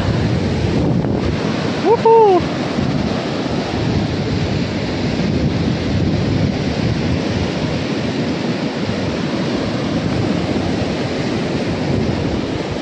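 Sea waves surging on the beach, with wind buffeting the microphone. A short tone that rises and then falls comes about two seconds in.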